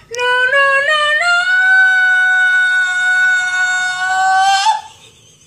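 A person singing loudly in a high voice: a few short notes stepping up in pitch, then one long held note for about three seconds that rises slightly and breaks off near the end.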